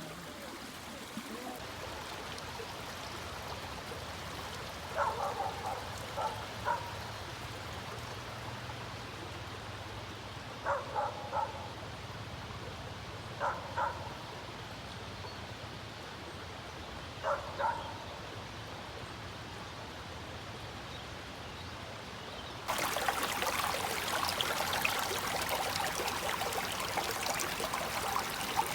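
Stream water running steadily, with a few short clusters of animal calls in the first two-thirds. About two-thirds of the way in, the water noise suddenly becomes louder and fuller, closer rushing water.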